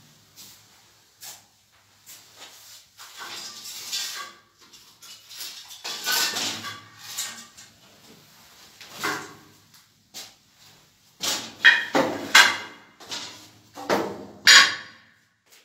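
Irregular knocks, scrapes and rustles of things being handled, then a door being worked and opened, with a cluster of louder knocks and creaks in the last few seconds.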